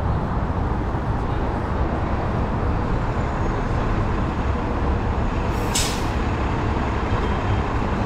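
Steady city street traffic noise, passing vehicles' engines and tyres, with a short high hiss of a bus or truck's air brakes about six seconds in.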